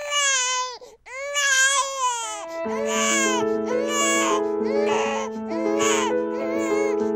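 Newborn baby crying in a string of long cries, the first ones falling in pitch. Background music with held notes comes in a little after two seconds and runs under the cries.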